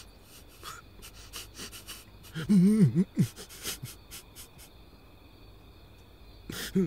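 A man crying: repeated sniffling breaths, with a short wavering sob about two and a half seconds in and another near the end.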